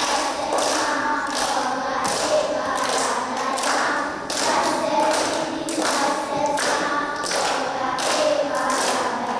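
A group of young children singing together in unison, with a steady beat of sharp percussive hits, like claps or stamps, keeping time under the song.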